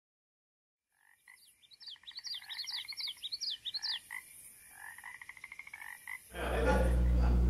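A chorus of frogs calling: pulsed trills with quick high chirps over them, starting about a second in. About six seconds in the calls stop and a loud steady low hum takes over.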